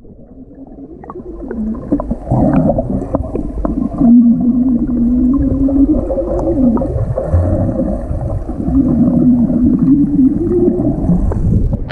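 A swimmer blowing bubbles out into the water with a hum: gurgling with a wavering low hum, strongest in two long stretches, about four seconds in and again near the end.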